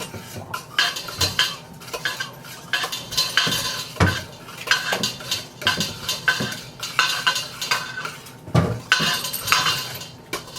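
Metal spoons and kitchen utensils clinking and scraping against a bowl and dishes in many irregular short strokes, as pumpkin pie filling is measured and mixed.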